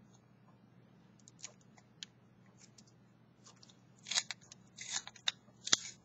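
Small handheld pencil sharpener's blade shaving a wooden pencil as it is twisted. A few faint scrapes at first, then from about four seconds in a run of louder scraping strokes with sharp clicks.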